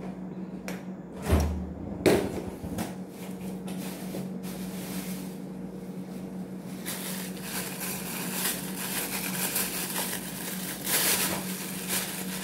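Refrigerator door pulled open with a deep thud and a knock, then rummaging inside the fridge and a plastic bag rustling, over a steady low hum.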